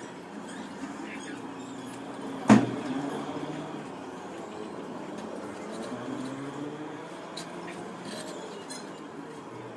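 Steady hum of distant vehicle engines with wavering pitch, with one sharp loud knock about two and a half seconds in.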